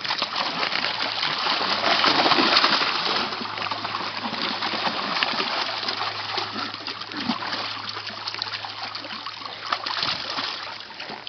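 Continuous water splashing and sloshing, heaviest about two seconds in, with a faint steady low hum underneath.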